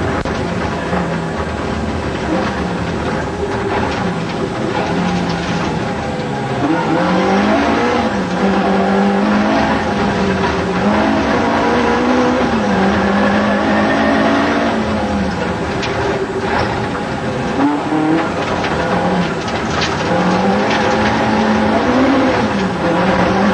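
Ford Escort Mk2 rally car's engine heard from inside the cabin at full stage pace, its revs climbing and dropping again and again.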